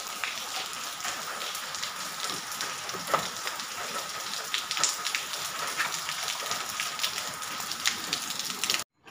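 Steady crackling hiss, like rain or static, with a faint steady tone underneath; it starts and cuts off abruptly.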